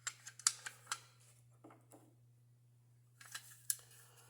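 Sharp light clicks and rattles of a plastic door-handle assembly being handled and turned over, a quick run of them in the first second and another short run about three and a half seconds in.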